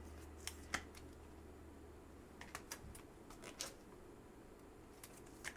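Faint, scattered clicks and taps of trading cards being handled: a handful of light ticks spread over several seconds.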